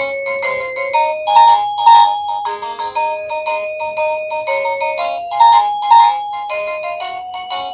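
Cacazi HYA10 wireless doorbell receiver playing one of its melodic ringtones: an electronic tune of steady notes in quick succession, with a few louder accented notes.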